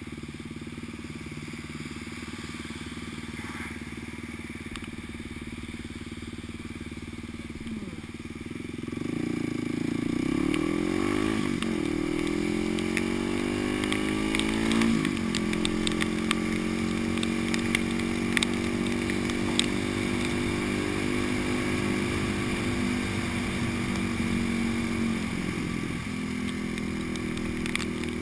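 Supermoto motorcycle engine idling steadily, then pulling away about nine seconds in: the revs rise, drop at a gear change, rise again through a second shift, and settle into a steady cruise. Scattered light ticks sound over the engine.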